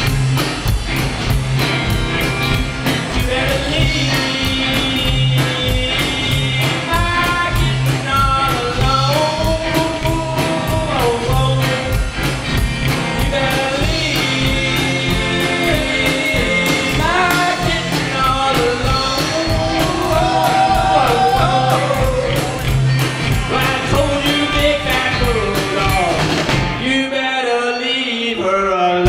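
Live rockabilly band playing: electric guitars, upright bass and drum kit with a male lead vocal on a steady beat. Near the end the band drops out for about two seconds, leaving the voice alone.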